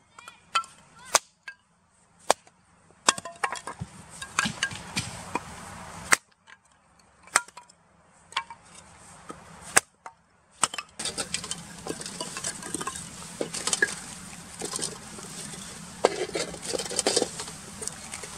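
Hatchet splitting a thin softwood board into kindling: sharp cracks of the blade biting and splitting the wood, roughly one a second with short pauses between. From about eleven seconds in, a denser clatter of wooden sticks knocking together and against a metal fire bowl.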